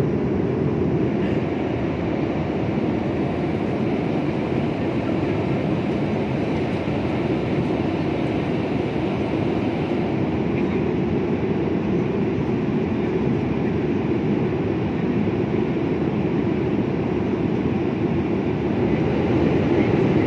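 Airliner cabin noise in flight: the steady low rushing drone of engines and airflow, even throughout with no distinct events.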